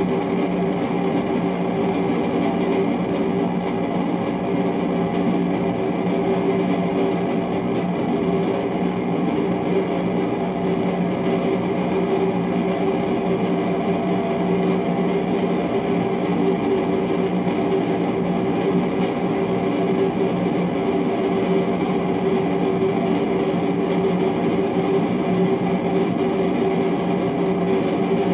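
Vibrations of a dozen eggs boiling in a pot on the stove, picked up by a contact mic and played through a Marshall guitar amplifier. The result is a steady, dense noise with a few held tones.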